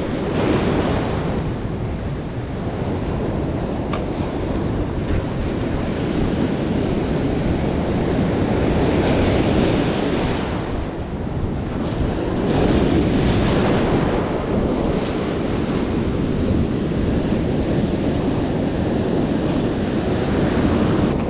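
Ocean surf breaking and washing up a sandy beach, with wind buffeting the microphone. The rush of the waves swells louder twice, about nine and thirteen seconds in.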